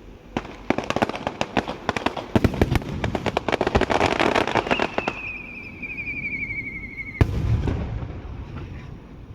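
Aerial fireworks: a dense run of crackling pops for about five seconds, then a whistle falling slightly in pitch, ended by a single loud bang about seven seconds in.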